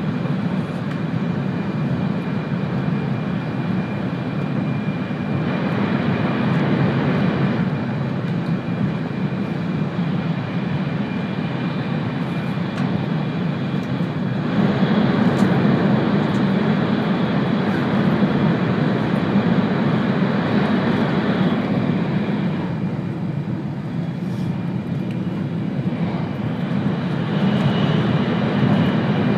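Cabin noise of an E2 series Shinkansen train running along the line: a steady low rumble of wheels and running gear with faint high whining tones. It grows louder about halfway through, drops back for a few seconds, then rises again near the end.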